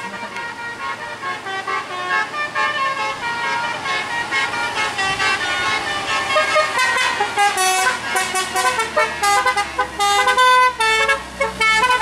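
A bus's multi-tone telolet horn plays a quick melody, its notes changing several times a second. It grows louder from about halfway through as the bus draws near, over the low drone of its engine.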